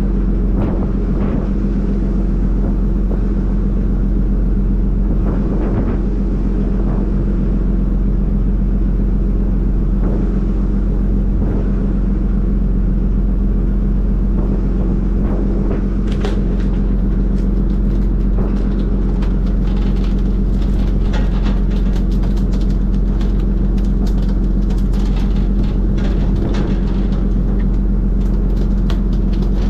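A fishing vessel's engine running with a steady low drone. From about halfway on, many short clicks and slaps come over it as skipjack are hooked and swung aboard on the poles.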